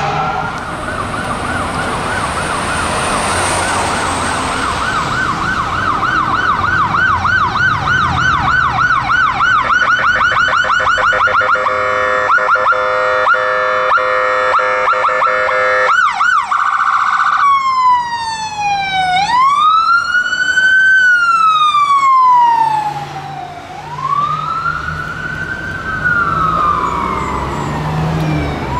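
Ambulance's electronic siren cycling through its tones. A fast yelp speeds up into a rapid warble, then a steady buzzing horn tone lasts about four seconds. A short burst of fast phaser sweeps follows, and slow rising and falling wails run through the rest, briefly dipping in level about two-thirds of the way through.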